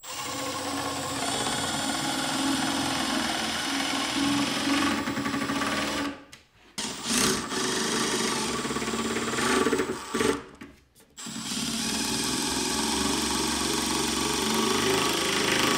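Compact Milwaukee Fuel cordless impact driver hammering screws into the plywood side of a cabinet box, in three long runs with short pauses between them.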